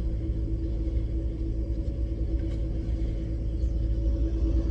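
Steady low engine rumble with a constant droning hum aboard a drive-on vehicle ferry during the crossing.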